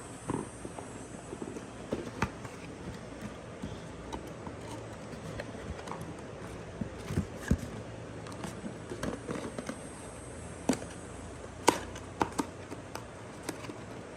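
Scattered small knocks, taps and rustles of a candle and its packaging being handled as it is fitted back into its box, with a couple of sharper clicks near the end.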